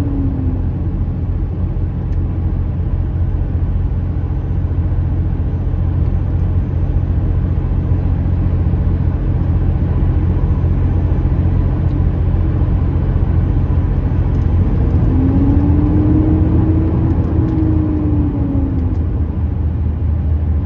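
A loaded truck-and-trailer rig's diesel engine running steadily on the road with a deep drone. A whine rises and then falls in pitch about fifteen seconds in.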